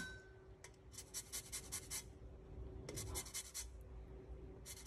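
Lime rind rubbed against the small holes of a flat stainless steel zester: faint, quick rasping strokes in three short runs, about a second in, around three seconds and near the end.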